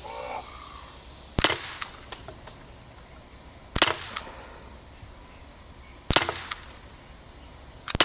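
Daisy Powerline 5501 CO2 blowback BB pistol fired four times, roughly two and a half seconds apart. Each shot is a sharp crack followed by a lighter click or two.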